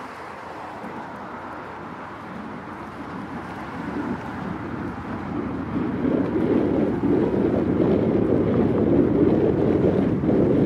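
Wind buffeting the microphone, a fluttering rumble that grows much louder about halfway through and stays strong.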